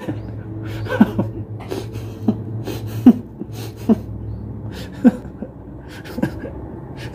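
A man chuckling in short breathy bursts, with puffs and exhalations as he smokes a cigarette, over a steady low hum.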